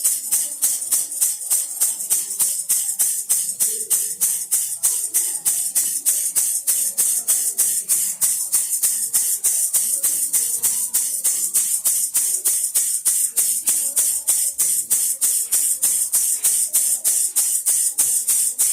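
Baby rattle shaken steadily in an even rhythm, about four to five shakes a second, each shake a bright, high-pitched rattle.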